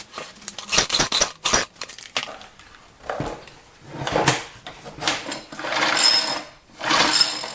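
Metal clinks of a deep well socket and spark tester being set in place, then the recoil starter rope of a small four-stroke trimmer engine pulled several times in quick succession, the engine turning over freely with its spark plug out during a spark check.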